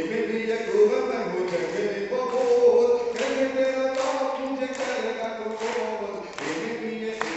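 A man singing verse into a microphone over a PA system, holding long, sliding notes. From a few seconds in, sharp strokes come about every 0.8 s as a regular beat.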